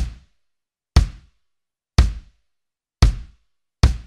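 22-inch kick drum (bass drum) struck with the pedal about once a second. Each hit is a sharp beater click over a short, low boom that dies away quickly. Near the end two hits come closer together.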